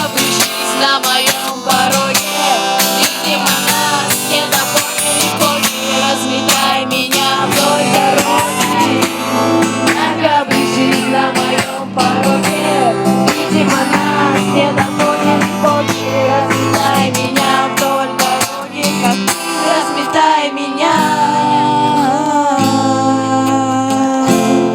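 Acoustic guitar strummed steadily, with voices singing along.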